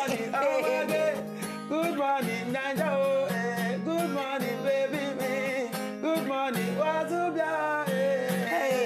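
A voice singing a melody over live acoustic guitar strumming, the pitch wavering and gliding between notes.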